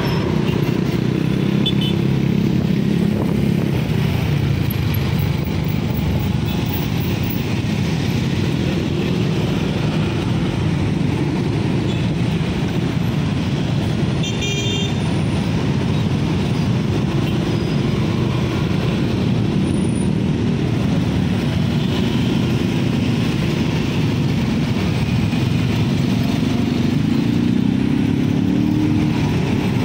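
Steady engine and road noise of dense motorcycle, car and bus traffic heard from a moving motorcycle. A brief high-pitched toot comes about halfway through, and an engine rises in pitch near the end.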